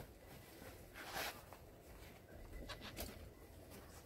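Faint handling of a van's canvas-and-mesh rear-door bug screen as it is rolled up by hand: a brief fabric swish about a second in and a few light clicks around three seconds in.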